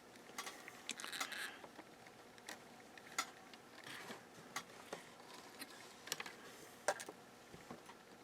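Irregular light clicks and taps of small tools and parts being handled on a workbench during soldering work, with a short cluster of scraping clicks about a second in.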